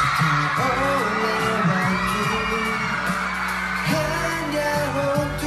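K-pop song playing, with sung vocals over a steady bass line.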